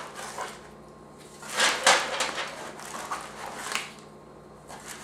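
Plastic hard-drive mounting rails and small parts from an accessory box being handled: a rustling clatter about two seconds in, then a few lighter clicks.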